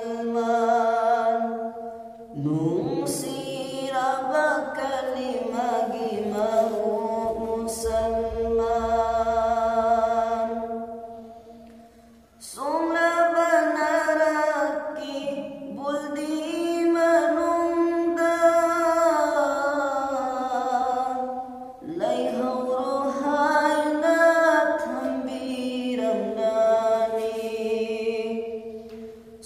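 A man singing a Manipuri naat, an Islamic devotional song, as a solo voice in long melodic phrases. It breaks off briefly about twelve seconds in and again about twenty-two seconds in.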